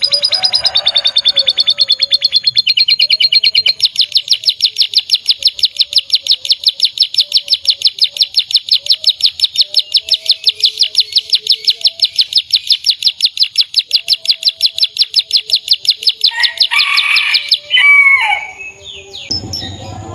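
Domestic canary singing: a loud, fast trill of rapidly repeated high notes that shifts to a new repeated note a few times and holds one for about twelve seconds, then breaks into quicker, varied notes near the end.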